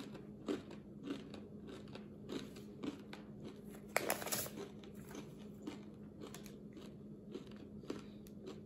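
Faint, irregular crunching of a Paqui One Chip Challenge tortilla chip being chewed, with a sharper crackle about four seconds in.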